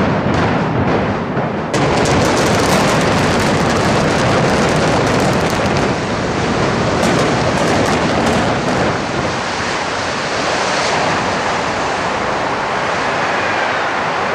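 Explosive demolition charges firing as a quick series of sharp reports, then from about two seconds in a sustained, crackling roar as the 20-story reinforced concrete dormitory collapses, easing slowly toward the end.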